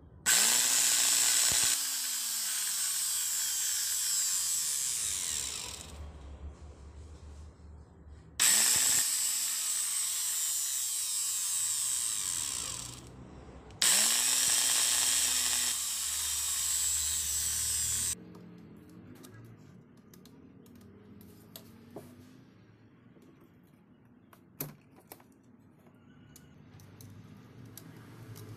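Three long blasts of air hissing into the opened motor housing of a Makita 9553B angle grinder, each cutting off abruptly, with a low tone that rises and falls at the start of each. Then light clicks of a screwdriver working at the brush holder.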